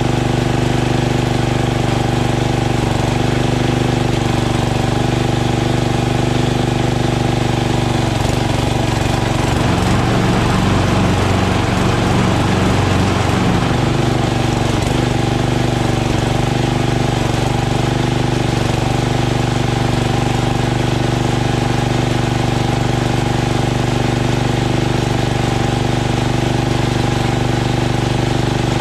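Craftsman LT2000 lawn tractor engine running steadily after its starter was replaced. About ten seconds in, the engine speed wavers and shifts for a few seconds, then settles back to the same steady note.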